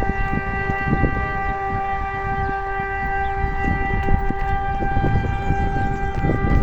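DS 977 civil-defence siren sounding a steady, unwavering tone, the continuous test tone of a siren test. Under it runs a heavy low rumble on the phone's microphone.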